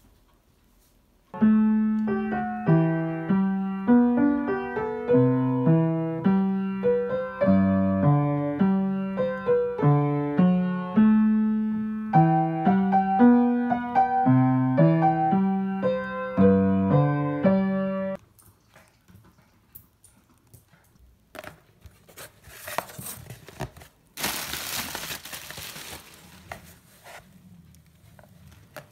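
Upright piano playing a melody, a steady run of struck notes over lower notes, stopping suddenly about 18 seconds in. Then rustling and scraping of a cardboard box, with a louder burst of rustling a few seconds before the end.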